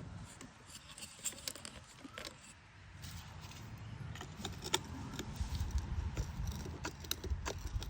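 Small hard pieces clicking and tapping together as they are handled and worked apart, in scattered irregular clicks that grow busier in the second half, over a low rumble.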